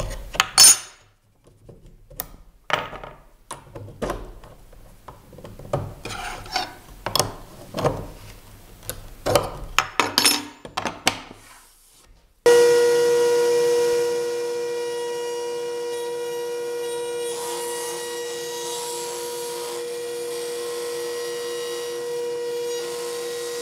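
Clicks and knocks of a router bit being fitted and tightened by hand in the collet of a table-mounted router. About halfway in, the router starts suddenly and runs with a steady high whine while the board's edges are rounded over on the bit.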